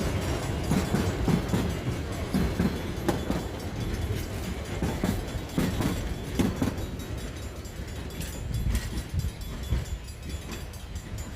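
Narrow-gauge train cars rolling past, wheels clacking irregularly over the rail joints over a low rumble, fading near the end.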